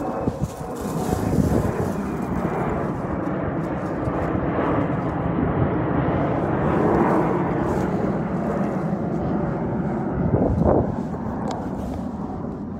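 Low, steady engine drone, likely from a passing vehicle or aircraft. It swells toward the middle and fades near the end.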